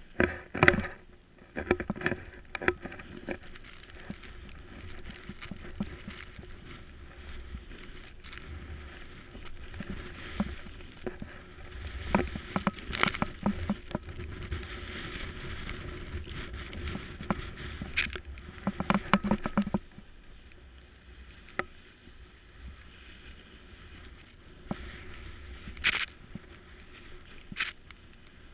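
Snowboard riding through deep powder snow: an uneven hiss and crunch of snow under the board that swells and fades with the turns, with scattered sharp knocks. It is louder through the middle and quieter after about two-thirds of the way, with one loud knock near the end.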